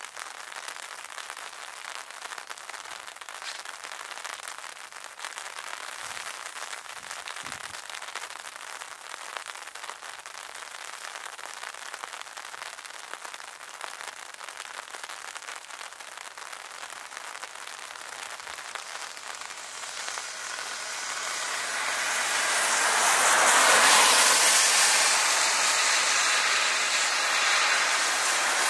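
Jet engines of two jet trainers at the runway end, running with a steady hiss. About two-thirds of the way in they spool up to takeoff power and the noise swells into a loud roar that peaks a few seconds later as the jets start rolling.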